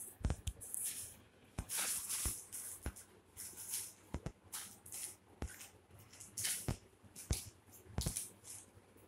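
Kittens play-fighting on a hard floor: repeated bursts of crinkling and rustling as they tumble over a plastic sheet, with many scattered sharp clicks and taps of paws and bodies hitting the floor. No meowing.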